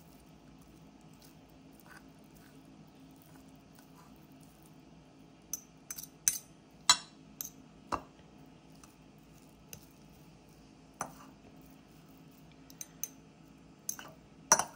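Two metal forks clinking and scraping against a ceramic bowl while shredding cooked chicken breast. The clinks are sharp and irregular, mostly in the second half, with the loudest about seven seconds in and near the end.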